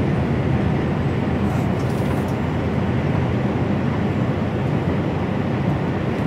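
Steady drone of an HGV lorry's engine and tyre noise heard from inside the cab while driving at road speed.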